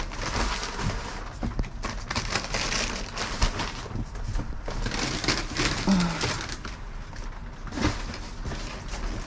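Trash being rummaged through: bags and debris rustling and crunching, with scattered small knocks.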